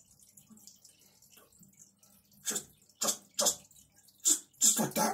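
A person's voice in several short, breathy bursts, starting about halfway in.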